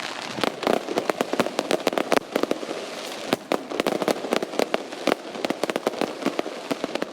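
Fireworks going off in a dense barrage: many sharp cracks and bangs in quick, irregular succession, several a second, over a continuous crackling haze.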